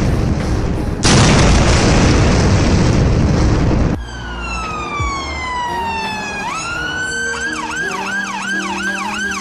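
A loud rushing blast of noise that restarts about a second in and cuts off sharply about four seconds in. It is followed by a police-siren sound effect: one slow falling wail, then a fast rising-and-falling yelp about twice a second, over background music.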